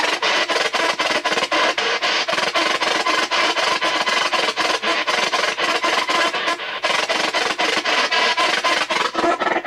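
P-SB7 spirit box sweeping the AM radio band, its speaker giving out loud static chopped into rapid pulses several times a second as it jumps from station to station.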